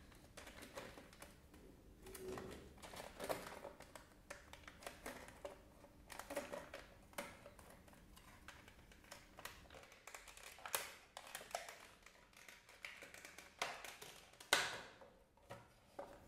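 A coloured pencil set and its packaging being handled and opened: scattered light clicks and taps as the pencils knock together, with a few short scrapes and rustles.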